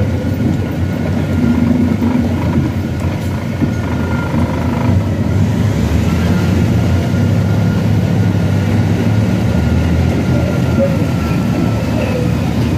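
Diesel engine of a prime mover truck running steadily, heard from inside the cab as it drives slowly, picking up a little about five seconds in.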